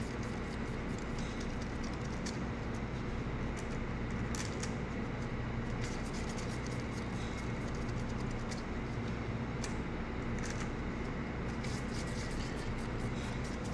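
Steady low machine hum of a room, with a few faint clicks and light taps.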